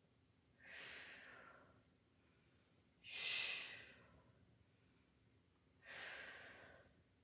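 A woman breathing out hard three times, about every two and a half seconds, each breath a hissing exhale as she lifts a dumbbell in a bent-over row; the middle breath is the loudest.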